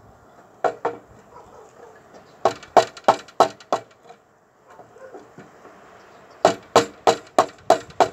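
Mallet driving a chisel into a wooden beam to cut a notch: two blows, then two runs of five or six sharp blows at about three a second, with a pause between them.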